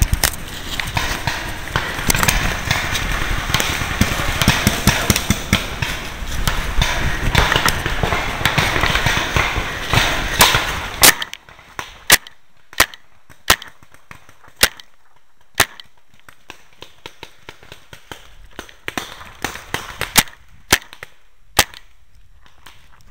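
Loud, close rustling and knocking of a player moving through woodland brush with gear on, stopping suddenly about eleven seconds in. Then single sharp paintball marker shots, about one a second at first, a pause, and three or four more near the end.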